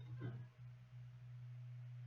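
Quiet recording background: a steady low hum, with a brief faint sound with falling pitch just after the start.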